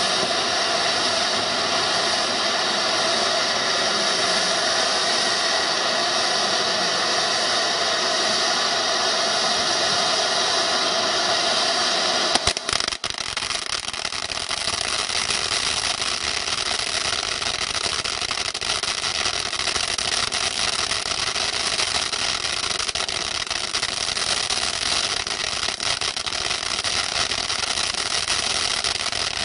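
Backyard Painter ground fountain firework spraying sparks with a steady, loud hiss. About twelve seconds in it breaks off for a moment, then comes back rougher, with crackling mixed into the hiss.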